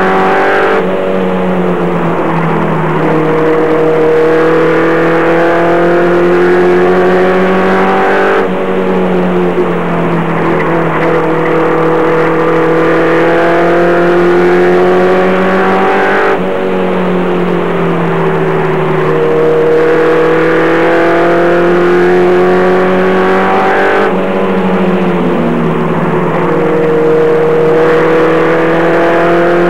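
Short-track race truck's engine heard from inside the cab at racing speed: a loud, steady engine note that drops in pitch and then climbs back up again about every eight seconds, lifting off and getting back on the throttle lap after lap around the oval.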